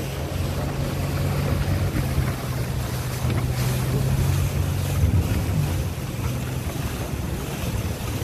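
Rigid inflatable boat's engine running under way, a steady hum, with wind buffeting the microphone and water rushing past the hull. About five seconds in the engine note shifts and the sound eases slightly.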